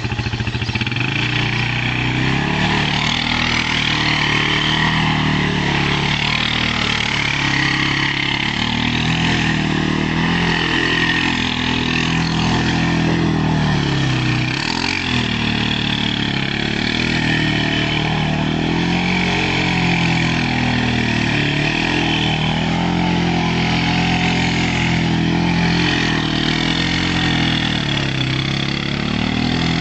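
Suzuki LTZ quad's engine revving up and down over and over as it spins donuts, its pitch rising and falling every two or three seconds, with a brief dip about halfway.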